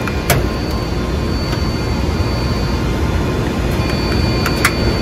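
Loud steady roar of data-center server and cooling fans, with a faint high whine over it. Two sharp clicks from handling the rack equipment and cables, one just after the start and one near the end.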